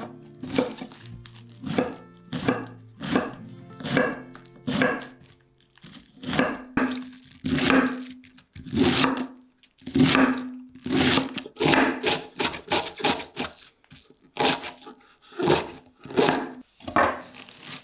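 Knife shredding a cabbage wedge on a wooden cutting board: about two slicing strokes a second, each one cutting through the leaves and knocking on the board.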